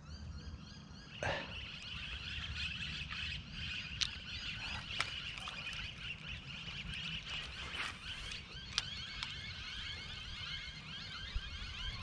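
A steady, high-pitched outdoor chorus of many small repeating calls, with a few sharp clicks and taps from handling a spinning reel and casting a lure.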